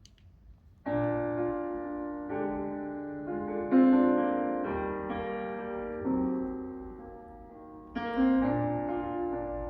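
Solo piano playing slow, sustained chords, entering about a second in, with a new chord every second or two.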